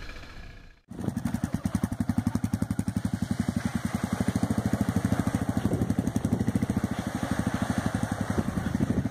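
Single-cylinder 650 dual-sport motorcycle engine idling with an even, fast beat of about eight pulses a second. It follows a brief stretch of riding noise that fades out and cuts off under a second in.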